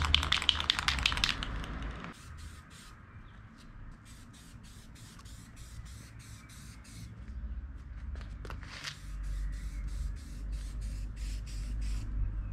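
Aerosol can of primer: first a quick run of rattling from the can being shaken, then short, repeated bursts of spray hiss, a few a second, as the primer goes onto the caliper parts.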